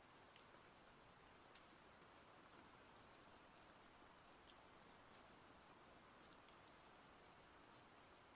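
Faint steady rain, with scattered single drops ticking every second or so.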